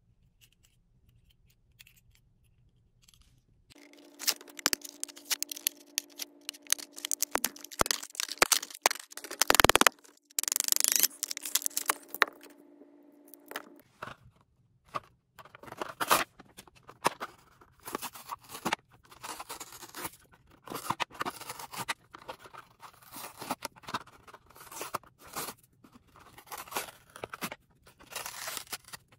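Hot Wheels packaging being handled and torn open: irregular crinkling, tearing and scraping of card and plastic, loudest about ten seconds in. A steady low hum runs under it for several seconds near the start.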